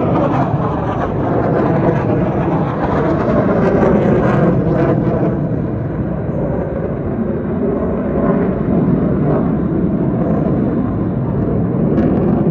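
Jet engine roar from a fighter jet flying overhead, loud and steady.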